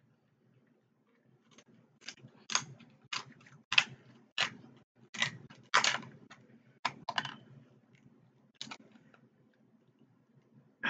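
Crab-leg shell being cracked and snapped with a metal crab cracker: about ten sharp, irregular cracks and clicks, bunched in the middle seconds.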